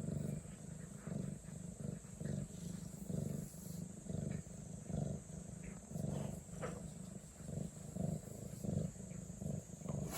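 Domestic cat purring close up, a low rumble that swells and fades in a steady rhythm about twice a second with each breath, the sound of a contented cat settled on a lap.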